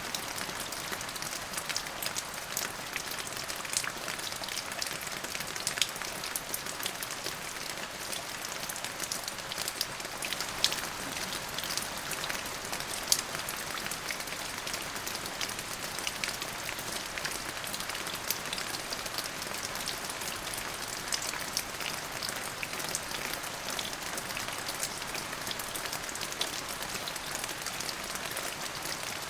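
Steady rain falling on a surface, an even hiss with many distinct drops ticking through it.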